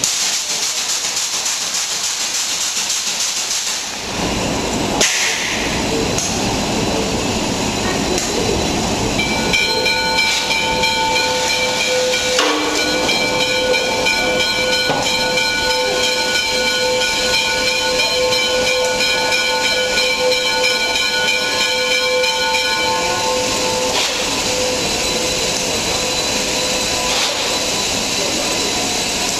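Steam locomotive hissing steam, with one long steady steam-whistle blast sounding several notes at once from about nine seconds in and lasting about thirteen seconds.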